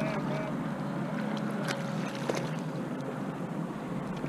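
Wind on the microphone and water lapping against a kayak, with a few light clicks.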